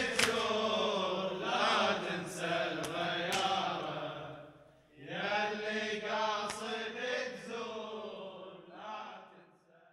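Male voice chanting an unaccompanied Arabic lament (latmiya) in long, wavering phrases. There is a brief break about halfway through, and the second phrase fades away near the end.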